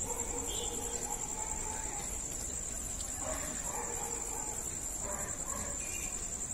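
Night insects trilling: a steady, high-pitched, rapidly pulsing chirr.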